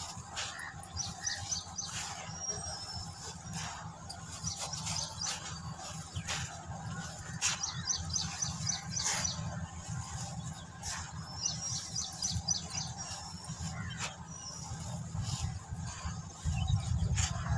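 Dry, powdery red dirt crushed and crumbled by hand, pouring and trickling back onto a dirt heap with soft gritty crunching. Birds chirp in the background in several quick runs of high notes.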